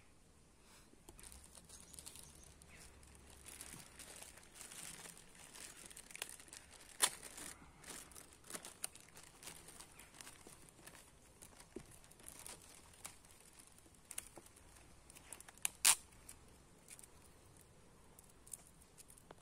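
Clear plastic bag crinkling and rustling as it is handled and opened, with irregular sharp crackles; the loudest snaps come about seven and sixteen seconds in.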